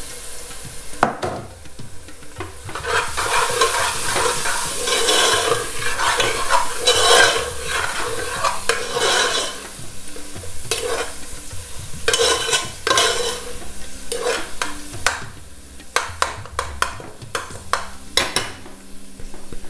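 A metal spoon stirs and scrapes chopped tomatoes through a sizzling onion-and-spice masala in a metal pot. Sharp clinks of the spoon against the pot come more often in the second half.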